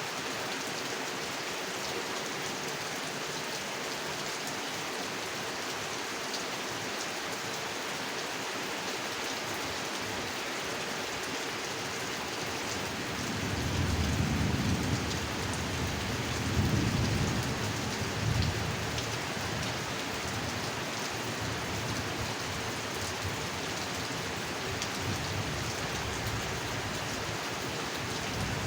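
Steady heavy rain falling on a pond, an even hiss throughout. About halfway through, a low rumble of thunder swells and fades over several seconds.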